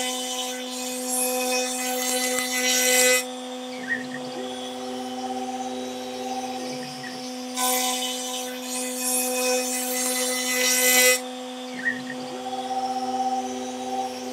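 Stepcraft M1000 CNC router's 1 kW MM-1000 milling motor spinning a surfacing cutter and facing the top of a wood panel. The spindle holds a steady whine throughout. Twice, for about three seconds each, a loud hissing rasp comes in as the cutter bites into the wood on a pass; a separate, lower steady tone sounds between the passes.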